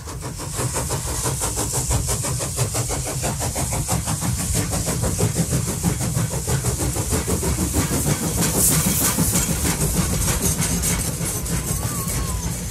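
A train running at speed, with a fast, even beat and a hiss on top.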